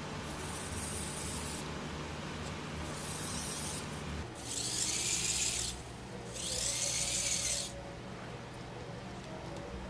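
Small electric motor of a hobby RC car whirring in short bursts of about a second. Two faint bursts come first, then two louder ones around the middle.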